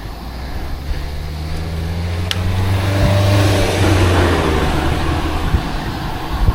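A car driving past: engine and tyre noise growing louder, loudest about three to four seconds in, then fading away.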